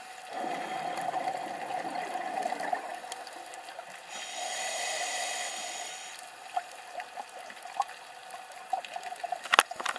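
Underwater scuba breathing through a regulator: a bubbly exhalation about half a second in, then a hissing inhalation around four seconds in. Scattered faint clicks run under it, with a sharper click near the end.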